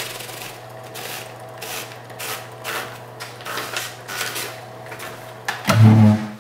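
Smith Corona 5TE electric typewriter with its motor humming steadily while keys strike in an irregular patter of clicks. Near the end a louder, lower mechanical clunk and whir lasts about half a second.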